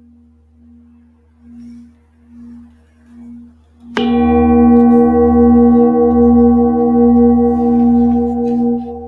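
Singing bowl struck with a felt mallet about four seconds in, ringing loud with several overtones and a slow wavering beat. Before the strike a softer bowl tone pulses gently. Near the end the ring drops sharply in level.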